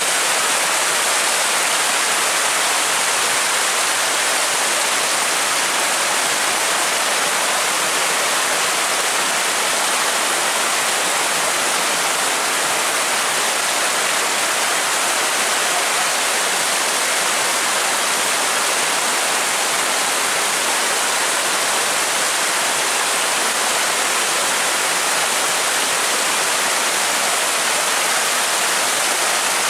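Muddy floodwater rushing in a fast torrent, a steady loud hiss of churning water that does not let up.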